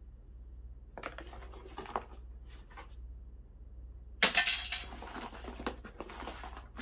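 Rummaging through a small cardboard box of scrap metal fittings: scattered clinks and knocks of small metal parts, then a louder burst of rustling and rattling just after four seconds in that dies away over a couple of seconds.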